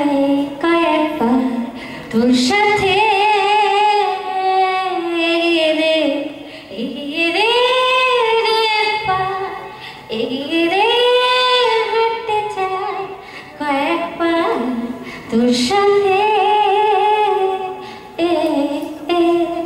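A woman singing solo into a handheld microphone, long held notes that waver with vibrato and slide in pitch, in phrases with short breaks between them.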